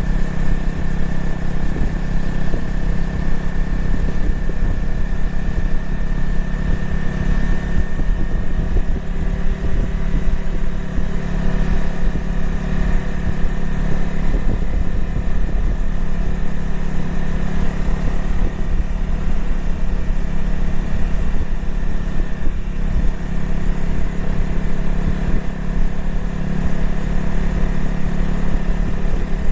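Honda CRF250L's single-cylinder engine running at a steady, even pitch, with no revving or shifting.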